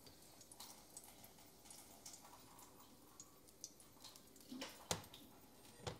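Faint, scattered pops and ticks of bacon fat crackling in a hot pan, with two sharp clicks of a utensil against the pan about a second apart near the end.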